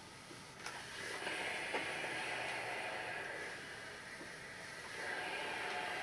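Steam iron pressing cotton fabric on an ironing board: a soft hiss for a couple of seconds from about a second in, and again near the end, with a light knock early on.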